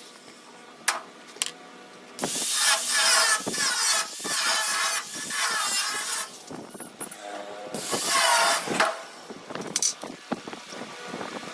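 Metalworking in a welding shop: two bursts of harsh, hissing, scraping noise, the first about three seconds long and the second shorter, with scattered clicks and taps between them.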